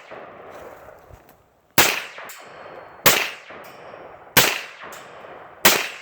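Four firearm shots fired at a steady pace about 1.3 seconds apart, each with a ringing echo trailing off, aimed at a tannerite target that none of them sets off.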